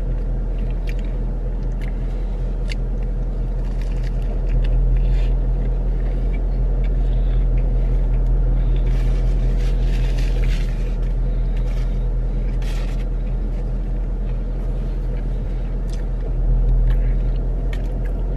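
Steady low hum of a car engine idling, heard from inside the cabin, under the small wet clicks and squishes of someone chewing a fried chicken sandwich. A paper napkin rustles against the mouth around the middle.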